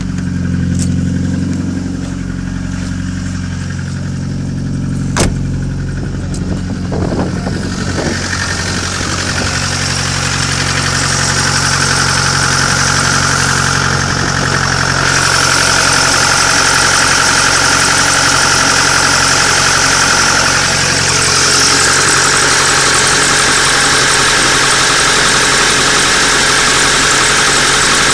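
Car engine running with a knock whose cause is unknown. There is one sharp click about five seconds in, and from about eight seconds the running sound grows fuller and brighter and stays that way.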